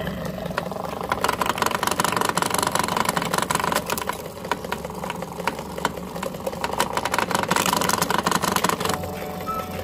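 Electric meat grinder motor running steadily under load, with a dense crackle of clicks as it grinds. The crackling stops near the end while the hum carries on.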